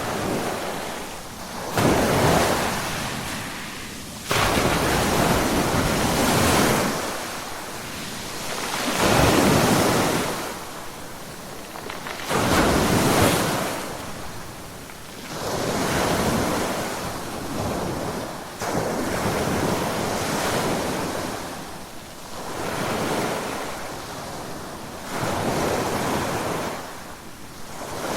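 Ocean waves breaking on the shore: about eight waves crash in turn, one every three or four seconds, each starting suddenly and then washing out.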